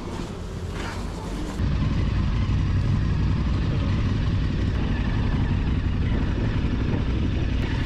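KTM 1290 Super Adventure S's V-twin engine running, with a steady low rumble that grows markedly louder about a second and a half in, then holds.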